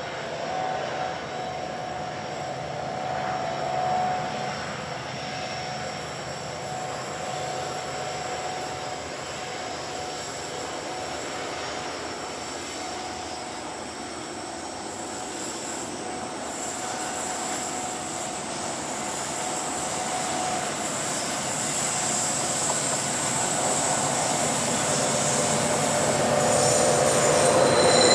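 Heavy freight train led by SCT-class and CSR-class diesel locomotives rounding a curve, engines running under a steady squeal of wheel flanges against the rail. It grows louder through the second half as the locomotives draw close.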